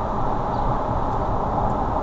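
Steady road and tyre noise of a car driving, picked up by a dashcam's microphone.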